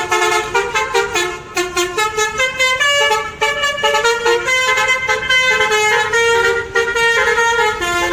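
Multi-tone 'telolet' air horn on an intercity bus playing a quick melody: several horn tones sound together and step from note to note in a rapid run of short blasts.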